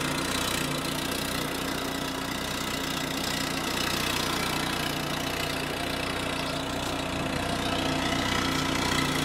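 Car engine idling steadily, an even hum that neither rises nor falls.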